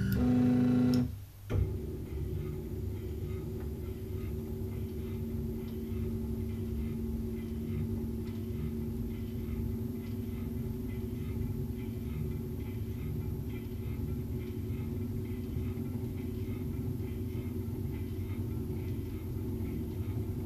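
Isel CNC milling machine running: a steady hum with fine, rapid ticking over it, which sets in after a brief dip about a second in.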